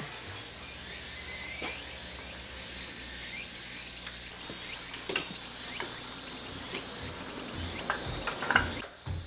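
Insects chirring steadily, with a few short knocks in the second half.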